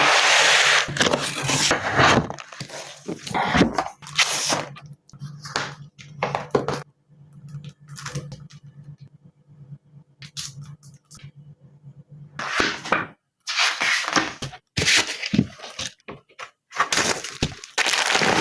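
Keyboard packaging being handled and opened: loud bursts of rustling, crackling packaging near the start and again several times in the second half, with quieter handling clicks and a steady low hum in between.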